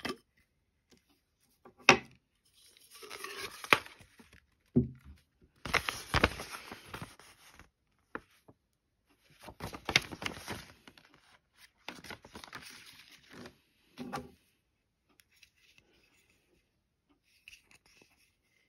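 Packaging being handled at a BlendJet 2 portable blender's plastic jar: a sharp click about two seconds in, then several separate bursts of rustling and crinkling as a packaging insert is pulled out of the jar and the lid handled.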